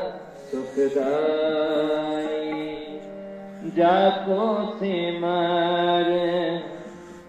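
Devotional music: a voice singing slow, chant-like phrases in long held notes over a steady drone.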